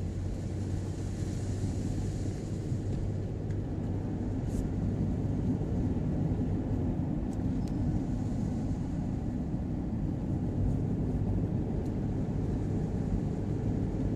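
Steady low rumble of a car's engine and tyres on the road, heard from inside the cabin while driving at cruising speed.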